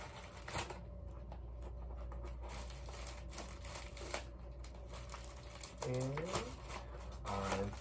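Plastic packaging crinkling and rustling as it is handled and pulled open. Two brief wordless vocal sounds come near the end.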